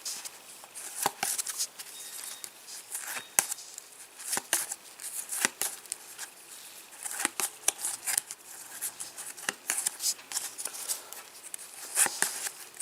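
Topps Match Attax trading cards being handled and flicked through, with irregular sharp clicks and snaps of card against card.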